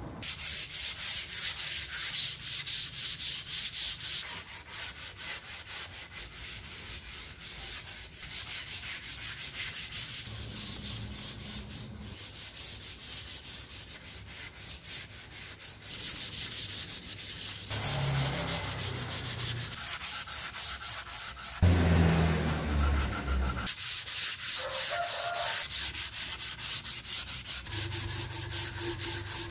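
Wood being sanded by hand, sandpaper rubbed back and forth over the board in quick regular strokes, about three to four a second, with a heavier, lower-sounding stretch of strokes about two-thirds of the way through.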